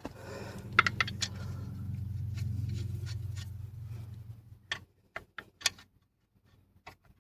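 Cordless impact wrench running steadily for about four and a half seconds as it spins a lug nut, with a few clicks about a second in. It is followed by several separate sharp metallic clicks.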